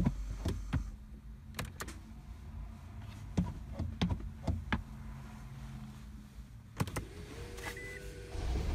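Scattered clicks and knocks of pedals and controls inside a second-generation Toyota Prius as it is put into inspection (maintenance) mode. Near the end a steady hum starts, a short electronic beep sounds, and the 1.5 L petrol engine starts and runs.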